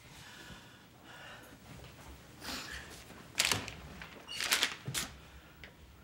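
A few short, sharp breaths from a man over low room tone, clustered in the second half.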